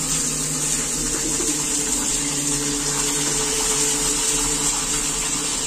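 A large whole fish deep-frying in a wok of hot oil: a steady, loud sizzle of spitting oil.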